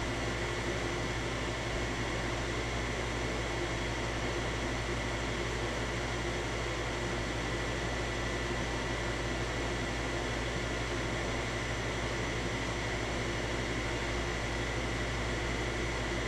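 A steady, unchanging hum and hiss with a few held tones underneath, and no separate events.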